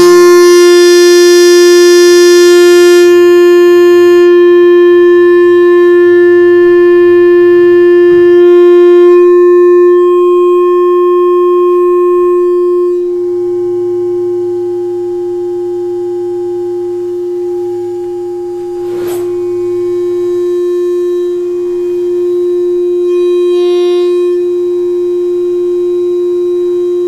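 Electronic synthesizer drone: one loud, steady, horn-like tone held without a break, with higher tones fading in and out above it and a low hum coming and going beneath it. A brief click about two-thirds of the way through.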